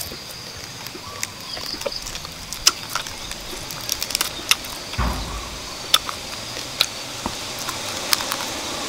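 Someone eating roasted quail: chewing and crunching on the meat and bones and tearing it apart by hand, heard as scattered short sharp clicks over a steady background hiss, with a dull thump about halfway through.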